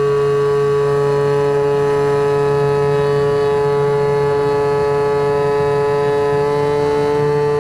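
Brushless electric motor (Turnigy Aerodrive SK3 35/36 1400kv) driving a three-blade 9x6 propeller on a SkyWalker FPV plane in flight, picked up close by the onboard camera as a loud, steady whine. Its pitch steps up slightly near the end.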